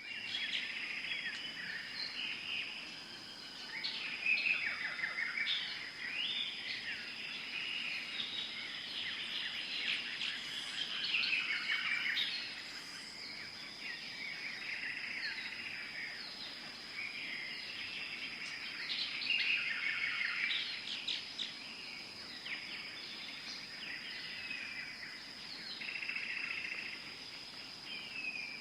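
A chorus of birds calling and chirping in quick, overlapping phrases, over a steady high-pitched insect drone.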